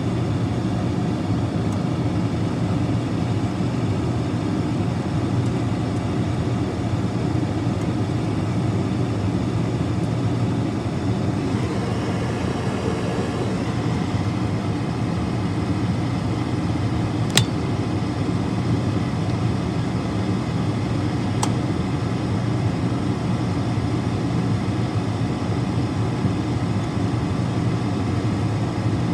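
Furnace blower motor running steadily: a low hum with a rush of air. A sharp click comes about two-thirds of the way through, and a fainter one a few seconds later.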